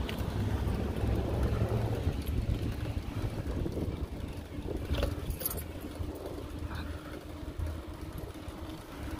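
Low rumble of wind on the microphone and a bicycle rolling along a concrete sidewalk, with two sharp clicks about five seconds in.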